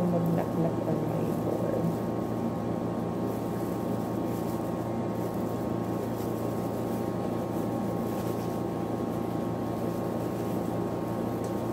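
A steady mechanical hum made of several fixed, unchanging tones, running evenly with no breaks or rhythm.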